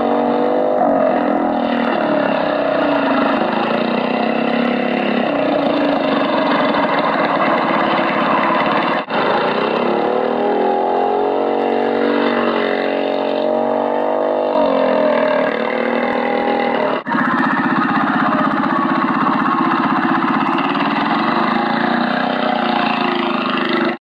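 Small Briggs & Stratton engine on a homemade remote-control car running and revving up and down as the car drives, its pitch rising and falling again and again. The sound is interrupted twice by a momentary break.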